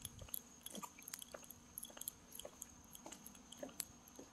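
Footsteps on a concrete walkway: faint, irregular clicks and scuffs, over a steady high-pitched tone.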